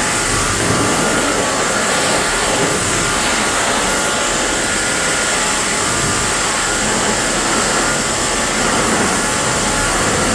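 Pressure washer spraying water onto a car's body: a loud, steady rush of spray that runs on without a break.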